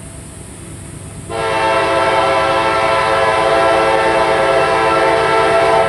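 Horn of a CSX GE C40-8W freight locomotive blowing one long, loud chord that starts suddenly about a second in and holds steady, over the low rumble of the approaching train.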